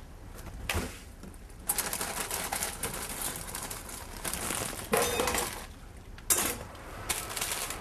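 Plastic bag crinkling as vegetables are tipped from it into a steel saucepan, the pieces rattling into the pot, with a few sharp knocks of kitchenware.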